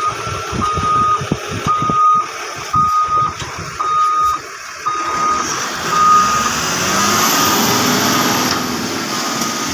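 Truck reversing alarm beeping steadily about once a second, one tone per beep, over the noise of the truck as it backs up; the truck's noise grows and rises in pitch in the second half.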